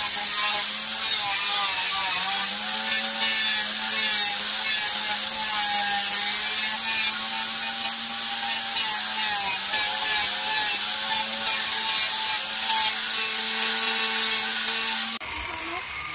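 Electric angle grinder with a sanding disc on a rubber backing pad, running steadily with a high whine as it sands down the wooden handle scales of a machete. The sound cuts off abruptly near the end.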